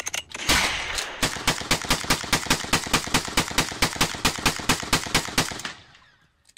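A couple of gunshots, then a long burst of rapid automatic gunfire at about seven shots a second for some four seconds, fading out near the end.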